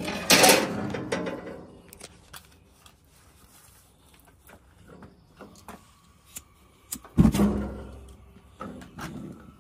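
Gas grill being handled while it is tried after washing: scattered sharp clicks from its controls and igniter, with a loud clatter just after the start and another about seven seconds in. The grill does not light, which the owner puts down to too much water.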